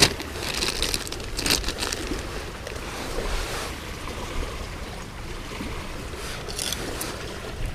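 Clear plastic zip-top bag crinkling a few times, mostly in the first two seconds, as a bait fish is pulled out of it, over a steady low rumble of wind on the microphone.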